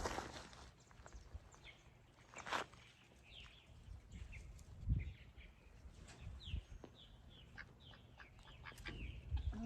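Birds chirping in many short, falling notes, with a few soft thuds and scrapes from hands digging in garden soil.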